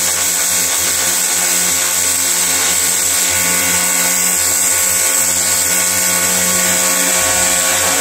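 Ryobi pressure washer running steadily under load, its motor humming as the high-pressure jet hisses onto wooden bench slats.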